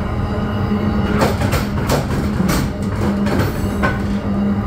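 Loud running noise of a moving Bombardier MultiLevel commuter train heard from between two carriages: a steady low rumble with a droning hum, broken by irregular sharp clatters.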